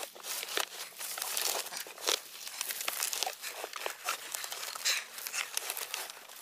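Dry leaves and brush crackling and rustling: a dense, irregular run of small snaps and crunches.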